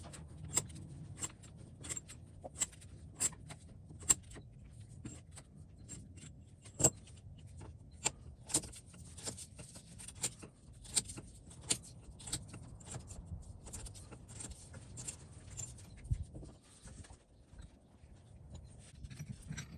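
Irregular small metallic clicks and clinks, a few a second, as parts of an old cast-iron bench vise are handled and worked loose during disassembly, over a low steady hum that fades out near the end.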